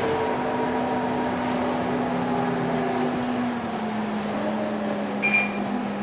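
A city bus's engine and drivetrain heard from inside the passenger cabin while it drives, a steady hum whose pitch drops a little a bit over halfway through. A short high beep about five seconds in.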